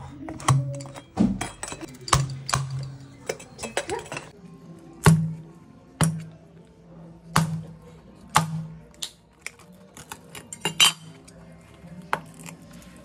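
Broad kitchen knife chopping a mud crab on a wooden chopping board. A quick run of clicks and knocks in the first few seconds is followed by single sharp chops about a second apart.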